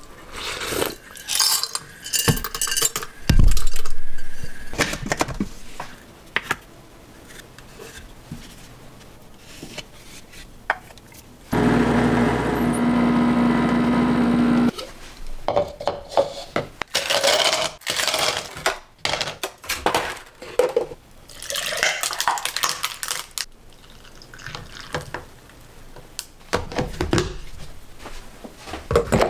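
Dishes and cutlery clinking as food and drink are handled, with a loud thump a few seconds in. Midway through, a home espresso machine (Planit PCM-NF15) hums steadily for about three seconds while pulling a shot, then cuts off.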